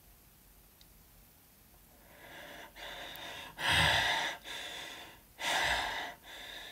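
A person breathing hard through the mouth: after a couple of seconds of quiet, about six quick gasping breaths in and out, two of them loud enough to blow on the microphone.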